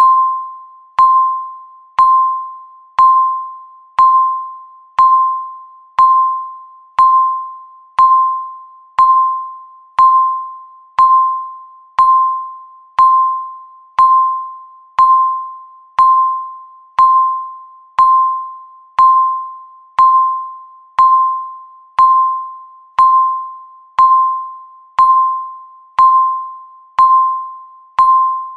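Countdown timer beeping once a second: a single electronic tone of one fixed pitch, each beep starting sharply and fading away before the next, marking each second left on the count.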